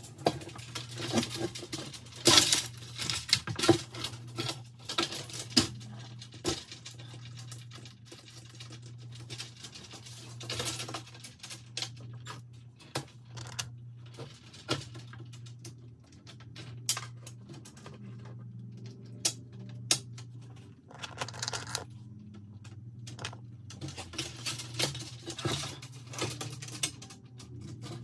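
Small bolts and nuts clinking and rattling against the plastic mesh grille insert and chrome grille shell as the hardware is fitted, in irregular bursts, busiest near the start and again near the end, over a steady low hum.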